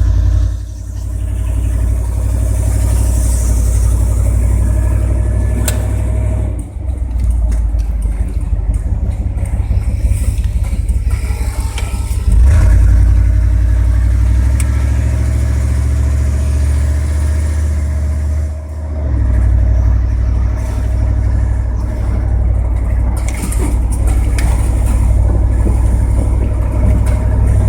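A 1994 GMC Sierra 3500's 5.7-litre V8 running under load on a test drive, a deep steady drone that eases off briefly a couple of times. The transmission will not upshift past a low gear, and a new speed sensor has not changed it.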